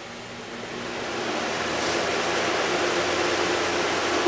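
A big electric fan switched on and spinning up, its rush of air building over the first couple of seconds and then holding steady, with a low steady hum underneath.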